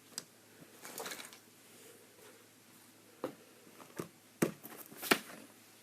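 Small plastic toy pieces being shifted and tapped by hand in a search, giving a handful of scattered light clicks and knocks.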